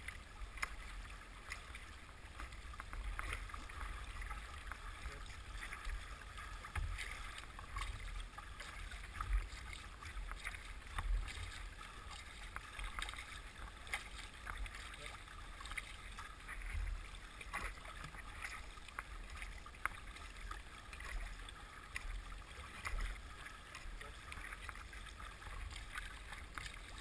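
Water rushing and splashing against the bow of a paddled boat moving down a fast river, a steady wash full of small spatters, with irregular low thumps underneath.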